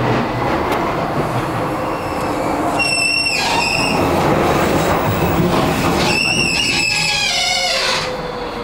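Docklands Light Railway train running on its track with a steady rumble, its wheels squealing high-pitched twice: briefly about three seconds in and again for over a second near the end.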